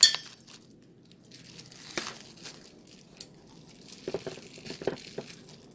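Thin plastic crinkling loudly for a moment at the start, then a few light clicks and soft rustles, mostly about four to five seconds in.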